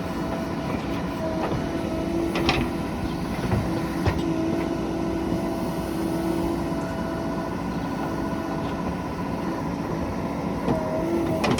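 Heavy diesel machinery running steadily, its engine hum carrying a steady whine that fades and returns, with a few sharp knocks about two and a half and four seconds in.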